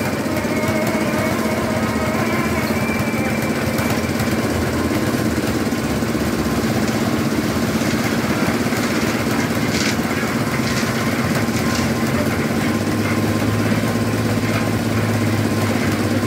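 Portable drum concrete mixer's small engine running steadily, with a lower hum growing stronger about twelve seconds in.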